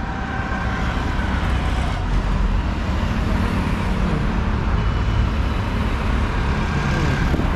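Steady road traffic noise: vehicles running along a nearby road.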